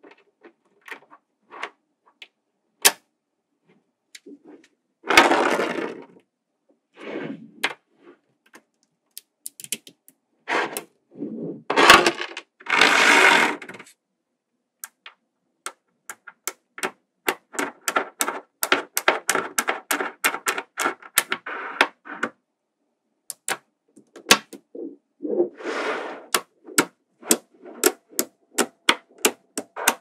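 Small magnetic balls snapping together with sharp clicks, some single and some in quick runs, broken by a few longer rattling clatters as strings of balls knock together. The loudest clatters come about twelve to fourteen seconds in, and a fast patter of clicks runs through the middle of the second half.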